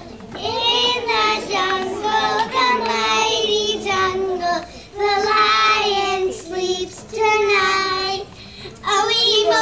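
A small group of young children singing together into a microphone, in short phrases of held notes with brief breaks between lines.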